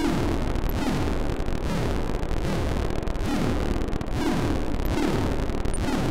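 Homemade breadboard oscillator circuit, a Mroztronium New Unusual Oscillator, producing a dense, noisy electronic buzz full of high frequencies. Low tones sweep downward again and again as a knob on the board is turned.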